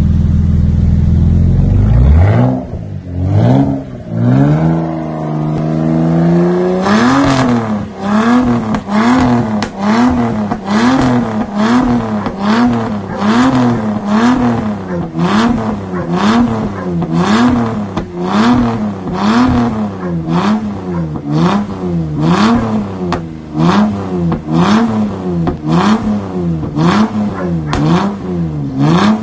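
Toyota Supra Mk4's 2JZ straight-six on a cold start after sitting 30 days: it comes up to a fast idle, then from about seven seconds in is revved over and over, roughly once a second, with crackles and pops from the exhaust each time the revs drop.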